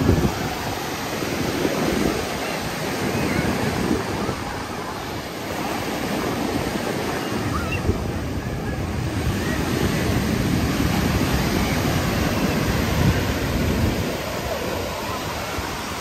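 Ocean surf washing onto the beach, with wind buffeting the microphone. The wash swells louder for a while around the middle and eases near the end.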